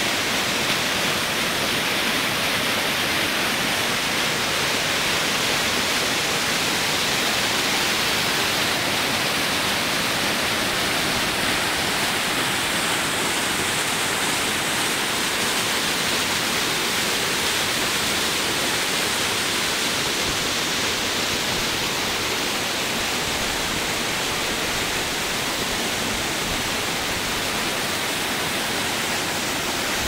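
Muddy stream water rushing steadily over rock ledges and small cascades.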